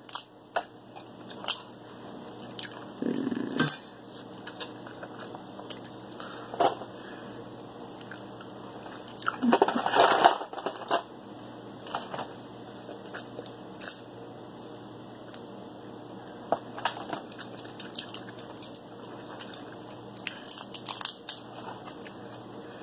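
Close-up eating sounds: king crab leg shells cracking and crunching as a plastic fork pries out the meat, with chewing and scattered sharp clicks. The loudest run of crackling comes about ten seconds in.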